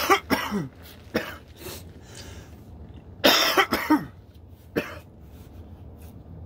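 A man coughing in fits while smoking cannabis wax: a run of coughs at the start, one more about a second in, another run of coughs about three seconds in, and a last single cough near five seconds.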